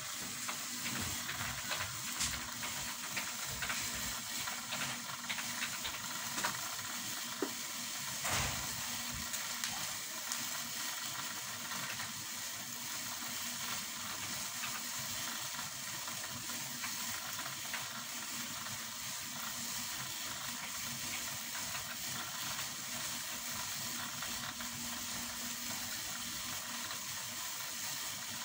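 Thin black plastic bag rustling and crinkling as it shifts about on a floor mat, over a steady hiss, with a few sharper crackles in the first ten seconds or so.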